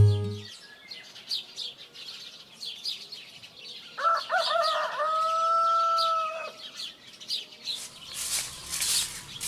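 A rooster crows once about four seconds in: a few short notes, then a long held note. Small birds chirp throughout, and a few scratchy hisses come near the end.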